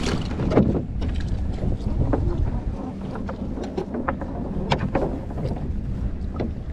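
Choppy sea splashing against the hull of a small rowboat and around the trailing oar blade, with wind buffeting the microphone. A few short knocks and splashes stand out from the steady rush.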